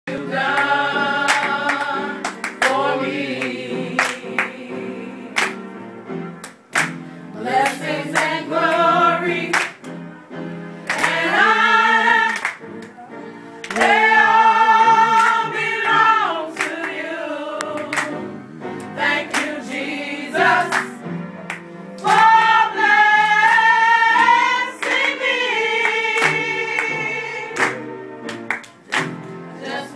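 A small group of women singing a gospel song together, with no instruments, and hand claps keeping time.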